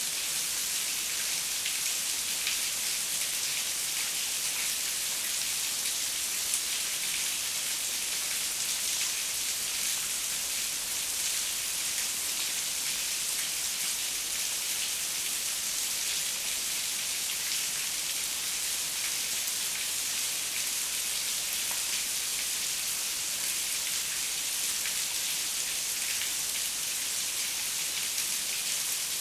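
Heavy rain falling steadily: a dense, even hiss of drops that does not change, with no thunder.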